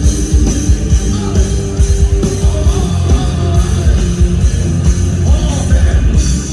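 Live rock band playing loudly through a large PA sound system, with a heavy drum and bass beat and electric guitar, in a stretch between sung lines.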